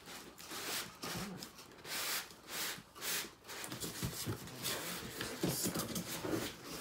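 White foam packing blocks rubbing and squeaking against the cardboard box as a boxed monitor is slid out. Rough scraping comes in bursts in the first half, with short squeaks in the second half.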